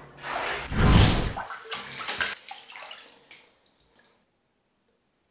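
Water sloshing in a filled bathtub as a body shifts in it, with one louder splash about a second in. It dies away to silence a little before the middle.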